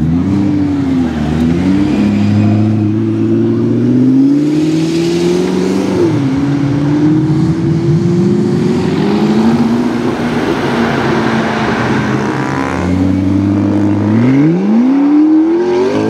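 McLaren P1's twin-turbo V8 accelerating, its pitch climbing, dropping sharply about six seconds in at an upshift, then climbing again, with a quick steep rev near the end.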